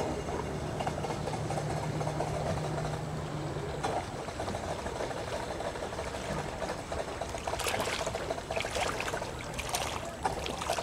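Boat engine running slowly at a ramp, with a steady low hum for the first four seconds that then gives way to a rougher mix of engine and water noise, with scattered short clattering sounds in the last few seconds.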